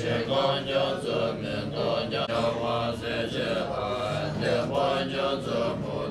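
Group of Buddhist lamas chanting puja prayers together, a continuous recitation of many male voices.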